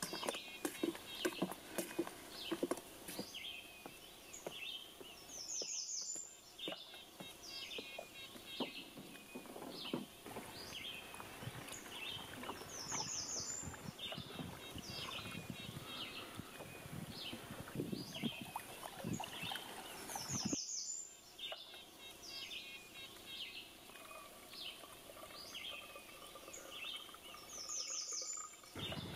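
Birds singing: a high, quick, falling song repeats about every seven seconds among many shorter chirps. Quieter knocks and water sounds sit underneath.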